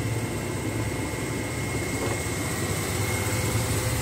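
Small motorboat's engine running steadily while under way, a low hum with a thin steady whine above it, heard from on board.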